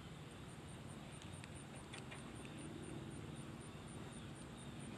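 An insect chirping steadily in a high, even rhythm of about four chirps a second, over a faint low background rumble, with a few soft clicks.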